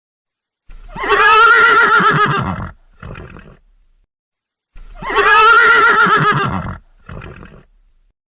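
A pony whinnying twice, the same call repeated: each is a quavering whinny about two seconds long, followed by a short, quieter sound and a second or so of silence.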